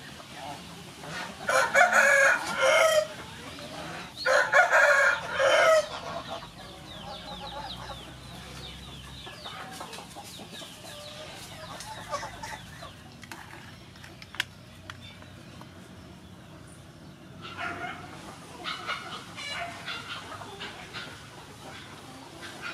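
A rooster crowing twice, loud, one crow after the other within the first six seconds, followed by fainter clucking of chickens.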